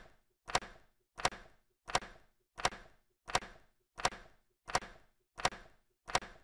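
Evenly spaced sharp knocks, about three every two seconds, each dying away quickly: a percussive intro sound effect.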